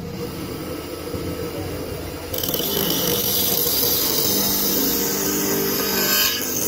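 Electric bench grinder motor running with a steady hum; about two seconds in, the steel cleaver blade is pressed against the spinning wheel and a loud, high grinding hiss joins the hum.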